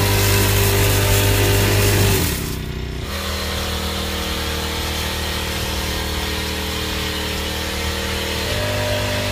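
Small four-stroke engine of a power sprayer running steadily at speed with a broad hiss. About two seconds in its pitch and loudness drop, and near the end it picks up again.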